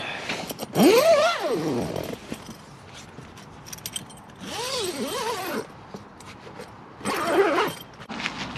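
A nylon sleeping bag rustling as a man settles into it, with three drawn-out, wavering voice sounds without words; the loudest comes about a second in.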